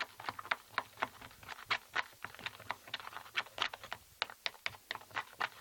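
A thick glue and shaving-foam slime mixture being stirred in a bowl, giving a quick irregular run of short sticky clicks and smacks, several a second.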